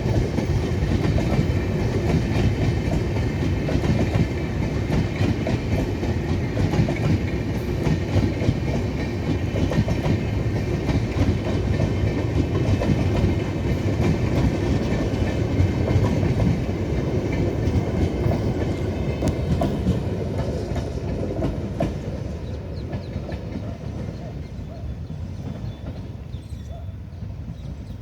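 Passenger coaches of an express train rolling past, wheels clattering rhythmically over the rail joints. The clatter holds steady, then fades away over the last several seconds as the train moves off.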